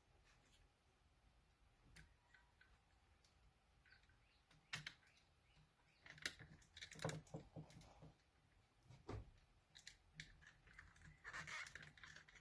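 Faint clicks and taps of small plastic parts of an RC truck's drivetrain being handled and snapped together during reassembly. They come in scattered bursts, a few at first and then busier in the second half.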